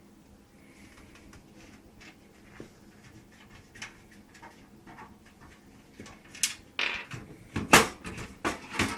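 Steel side panel of a PC case being taken off: faint handling clicks and scrapes, then several louder metallic clunks and rattles in the last few seconds as the panel comes free.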